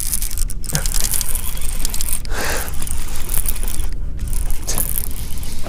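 A baitcasting reel being cranked against a hooked bass, with scraping and clicking from the reel and rod handling. Wind rumbles on the microphone throughout.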